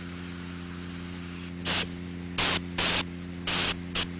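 Steady low hum and hiss, then from about halfway a stuttering run of about five short jet-hiss bursts that cut in and out abruptly: a flying thruster pack sputtering as it fails.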